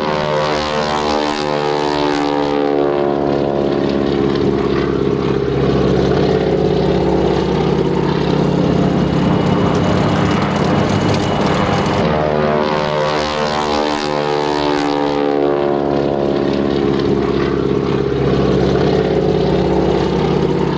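Propeller aircraft engine running loud and steady during a low fly-past. The engine's pitch slides downward as the plane passes, twice.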